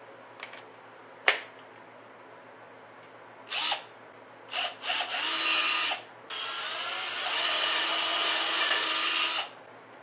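A sharp knock about a second in, then a handheld power drill run in short bursts and finally held on for about three seconds before it stops.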